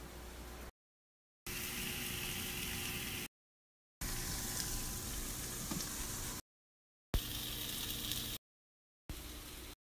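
Milk tea heating in a saucepan on the stove, giving a steady simmering hiss. It comes in several short stretches of a second or two, each cut off abruptly by dead silence.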